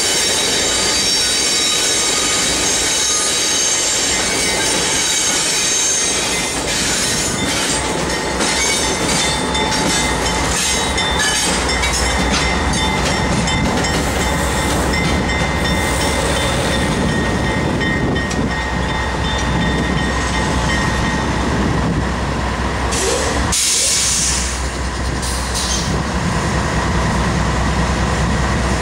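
CSX GE AC4400CW diesel-electric locomotives rolling slowly past, their wheels squealing on the rail with several high steady tones over the first several seconds. From about a third of the way in, a steady low diesel engine drone dominates.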